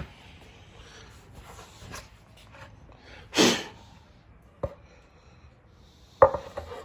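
Close-fitting wooden table parts being handled: a short rushing scrape about halfway through, a sharp click a second later, and a knock near the end.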